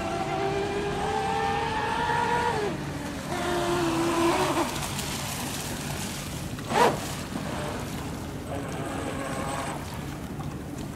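RC speedboat motor whining at high speed, holding a steady pitch, then easing off and running again at a slightly lower pitch. A short, loud whoosh comes about seven seconds in, and the whine comes back fainter near the end.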